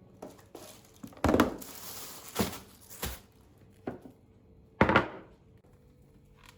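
Household items being handled and set down: about five separate knocks and thuds, the loudest a little under five seconds in, with a crinkling rustle around the first two knocks.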